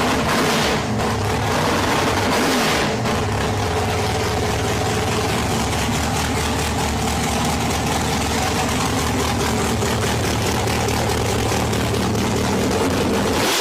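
A muscle car's big engine running steadily near idle, with two short rises in engine sound within the first three seconds.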